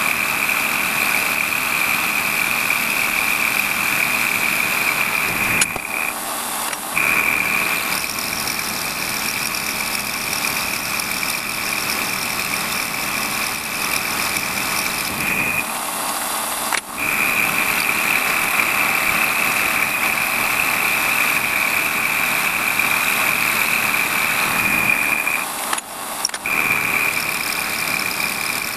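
WARCO lathe running with an end mill in the chuck, milling a block held on a vertical milling slide. A steady high whine breaks off briefly three times, about every ten seconds.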